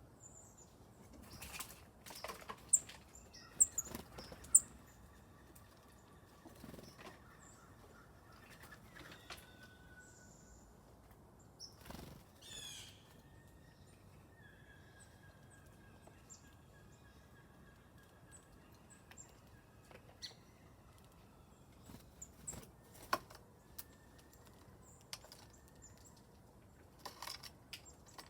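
Small songbirds coming and going: brief wing flutters and scattered short, high chirps, with a few loud, sharp taps in the first few seconds and a wavering call about halfway through.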